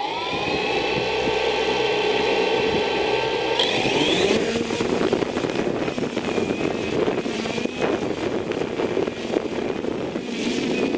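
3DR drone's electric motors and propellers spinning up from rest with a quick rising whine, then holding a steady whine on the ground. About three and a half seconds in the pitch rises as it throttles up and lifts off, then settles into a steady buzzing hum with rushing air as it climbs.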